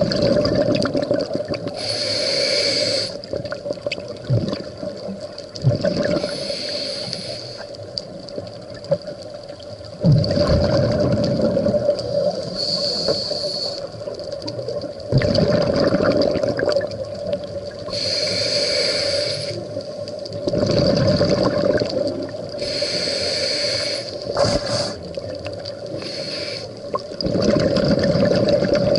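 Scuba diver breathing through a regulator underwater, in a repeating cycle every four to five seconds: a short high hiss on each inhalation, then a louder low rush of bubbling on each exhalation.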